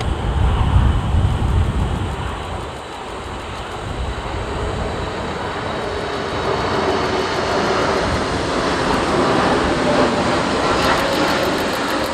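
Four-engine Boeing 747 freighter's jet engines growing louder as it approaches to land, with a steady whine building over the last half. Gusty wind buffets the microphone in the first two seconds.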